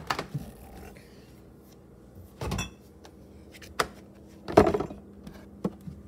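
Stainless-steel refrigerator door being handled and pulled open: a series of knocks, clicks and short rustling bursts, the loudest a little after the middle, over a faint steady hum.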